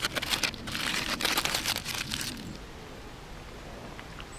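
Aluminium foil being crumpled by hand, a dense crinkling that lasts about two and a half seconds and then stops.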